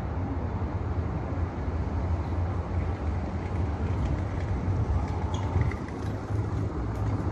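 Steady low rumble of outdoor background noise with no distinct events, and a few faint high ticks in the second half.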